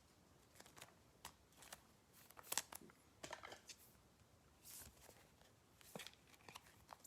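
Faint crinkling and clicking of trading-card packs and cards being handled, in short scattered bursts with the loudest about halfway through.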